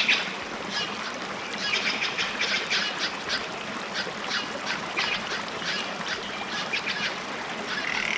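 Animal calls: short runs of high, quick clicking, chattering notes, repeated in irregular bursts.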